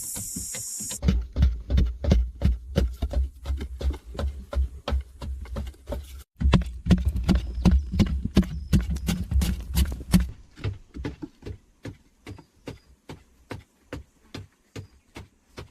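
Repeated rhythmic knocks, about three a second, heavy with a dull low thud for most of the first ten seconds with a brief break partway. Then they turn lighter and fainter.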